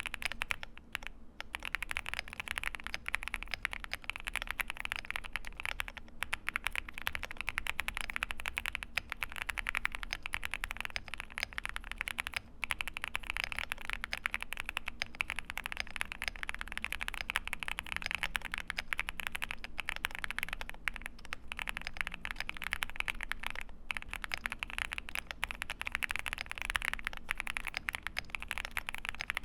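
Continuous fast typing on an IQUNIX Super Nature 80 full-aluminium mechanical keyboard with Moonstone switches and PBT keycaps: a dense, even stream of key clicks and clacks.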